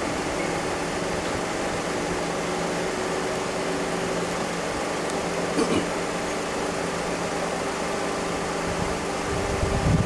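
A vehicle engine idling with a steady hum, and a brief higher-pitched sound about halfway through.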